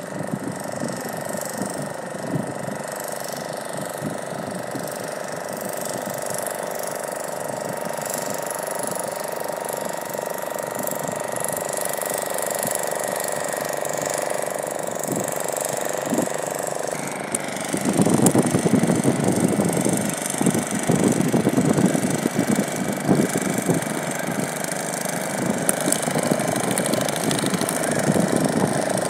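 A motor engine running steadily with a constant hum. About 17 seconds in, the sound shifts and a louder, rougher rumble takes over.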